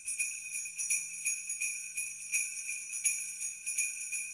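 Jingle bells shaken in a quick, even rhythm, a steady bright ringing renewed several times a second.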